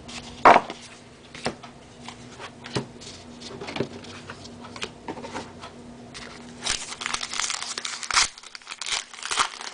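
Baseball trading cards and their pack wrapper being handled: scattered light clicks and slides of cards, then denser crinkling of the wrapper from about seven seconds in.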